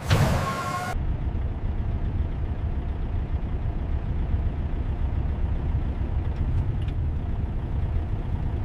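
A short noisy whoosh at the start, then a steady low motor rumble, like a vehicle engine running.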